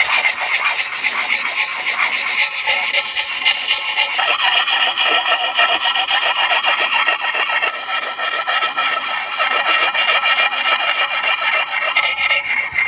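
A handheld sharpening stone rubbed in quick back-and-forth strokes along the steel bit of a Plumb Permabond axe, a continuous gritty scraping that hones the edge.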